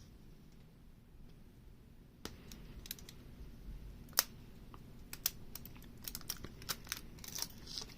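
Light clicks and taps of a removed plastic sander backing pad being handled and turned over, scattered at first from about two seconds in and coming more often in the second half.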